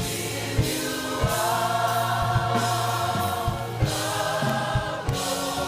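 Gospel choir singing long held notes in harmony over instrumental accompaniment, with a steady low bass line and a regular beat.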